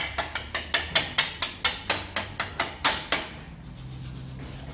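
Mallet tapping on the motorcycle's front wheel assembly in a quick, even run of sharp knocks, about five a second, that stops about three seconds in.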